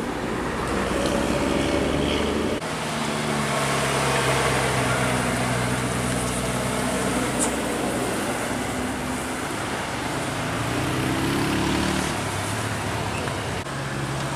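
Engines of large tour buses driving past close by, one after another, each a steady deep engine hum. Around ten seconds in, an engine's pitch rises as it revs up.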